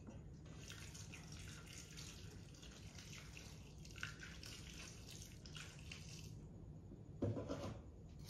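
Hot water pouring from an electric kettle into a stainless steel bowl of smoked pork, a steady splashing stream that stops about six seconds in. A short thump follows about a second later.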